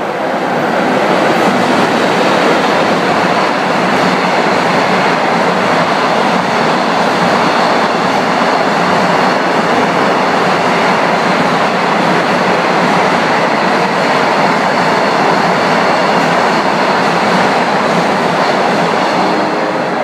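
A freight train hauled by an EF81 electric locomotive passes at speed, followed by a long string of container wagons: a steady loud rumble of wheels on the rails. It builds up in the first second and eases off near the end as the last wagons go by.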